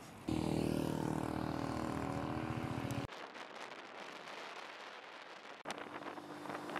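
A motor vehicle engine running loudly and steadily for about three seconds, then cutting off abruptly. Quieter rushing noise follows, and a fainter engine hum starts near the end.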